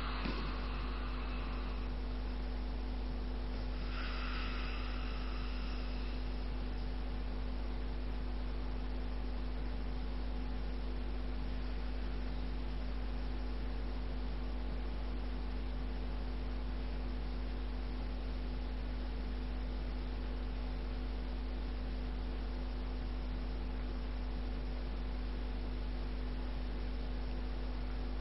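Steady electrical mains hum with a faint hiss. Two short breathy sounds come in the first six seconds, then only the hum remains.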